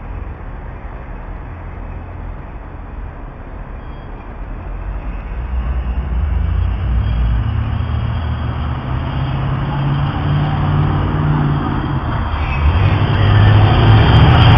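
Car with a modified, loud exhaust and a loud stereo approaching: a low rumble and bass that build steadily, loudest near the end.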